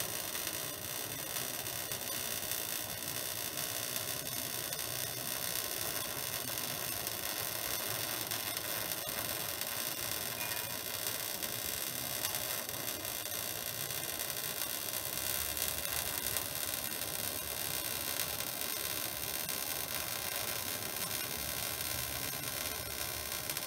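Wire-feed welding arc on mild steel plate, a steady hiss that runs on without a break as a bead is laid.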